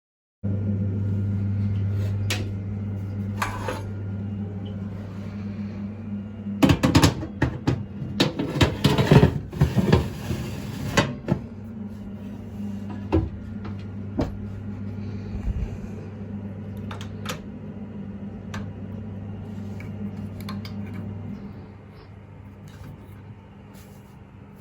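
Steady electric hum of a kitchen appliance, with a spell of clattering dishes and knocks of cupboard doors for several seconds around the middle and scattered single clicks. The hum stops about three quarters of the way through.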